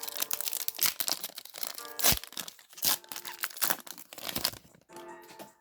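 Foil wrapper of a Pokémon card booster pack being torn open and crinkled, a quick run of sharp rips and crackles that stops about four and a half seconds in. Soft background music plays underneath.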